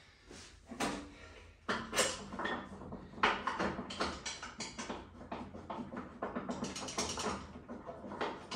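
Irregular clanks, clicks and rattles of metal parts and tools being handled as a lawn tractor's mower deck is worked into place.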